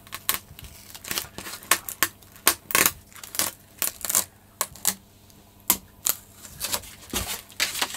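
Film strip being peeled off a carbon-fibre glider wing, crackling in a string of sharp, irregular clicks, with a brief lull about halfway through.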